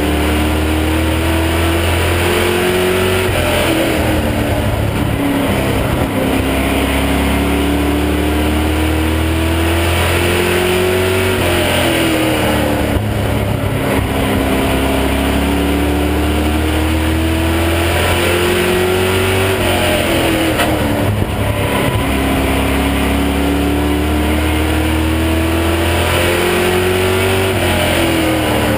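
Stock car engine heard from inside the cockpit of a #33 Chevy Monte Carlo sportsman car at racing speed. Its pitch climbs steadily for several seconds down each straight, then drops sharply four times as the driver lifts for the turns, lap after lap.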